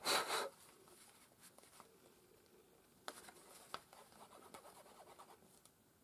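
A short rustle, then faint scratching and light ticks as a bottle of tacky craft glue is squeezed and its tip worked over card. The nozzle is clogged, so the glue does not flow properly.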